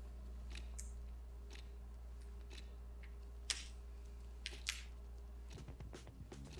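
Faint steady room hum with a few short, sharp clicks and rustles from wired earbuds and their cable being handled. About five and a half seconds in, music with a deep beat begins.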